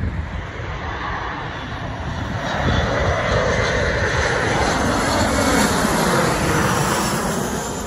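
Embraer E175's twin turbofan engines as the jet passes low overhead on final approach. The jet noise swells to its loudest a few seconds in, then begins to fade, with a faint fan whine over it.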